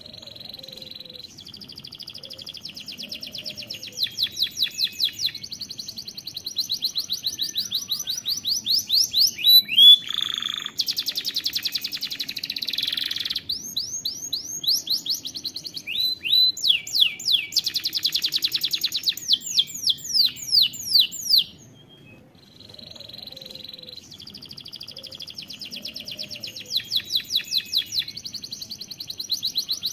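Domestic canary singing a long, high-pitched song of trills: runs of repeated notes, some very rapid and some slower sweeping notes. The song breaks off for about two seconds about three-quarters of the way through and then resumes.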